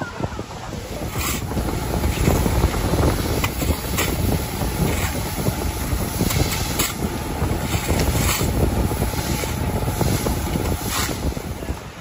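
A fire truck's engine and water pump running steadily, feeding a hose that jets water onto the pavement, with wind buffeting the microphone and a few sharp knocks.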